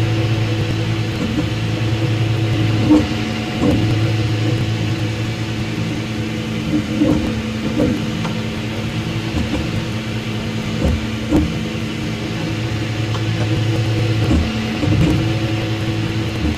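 3D printer stepper motors humming in steady tones that shift and break off every few seconds as the print head changes its moves while laying down a layer, with occasional short clicks.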